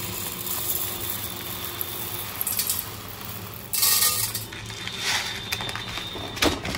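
Dry biryani rice poured from a packet into a small container, the grains hissing and pattering in a few separate pours, with a sharp knock near the end.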